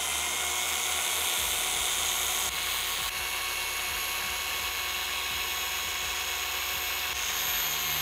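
Rupes Bigfoot mini dual-action polisher running steadily at speed with a high whine, its microfiber pad loaded with M105 compound working against car paint to cut out wet-sanding marks. The pitch shifts slightly a couple of times as the load on the pad changes.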